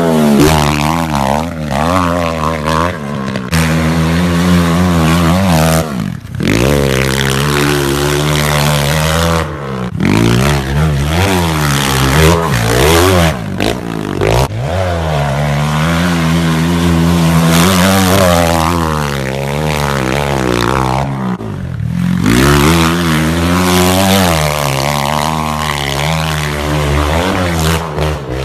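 Pit bike engine revving up and down over and over as the bike is ridden hard along a snowy trail, with a steady low drone underneath.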